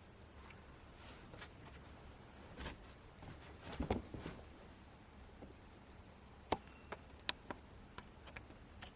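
Scattered light clicks and taps of small hard parts being handled: a few soft knocks about three to four seconds in, then four sharp clicks in quick succession near the end.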